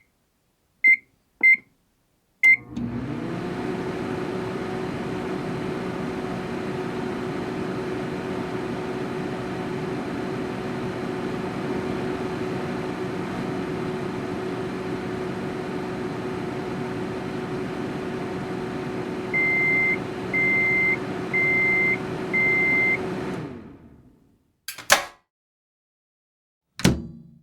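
Microwave oven: two short keypad beeps, then the oven starts and runs with a steady hum for about twenty seconds. Near the end four loud beeps sound the end of the cycle as the hum dies away, followed by two sharp clicks.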